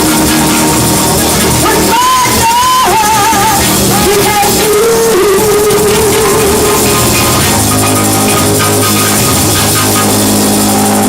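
Live church praise band music: sustained chords with a melody line that bends in pitch, and some singing.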